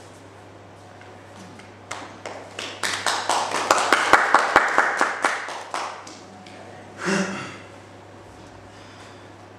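Hand clapping that starts with a few separate claps about two seconds in, builds into quick, steady clapping for a few seconds, then dies away. A brief voice sound follows about seven seconds in.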